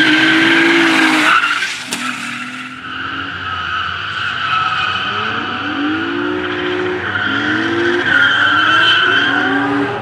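Opel Omega drift cars sliding through corners: the tyres squeal steadily while the engine revs rise and fall again and again as the driver works the throttle. The sound dips briefly about two seconds in.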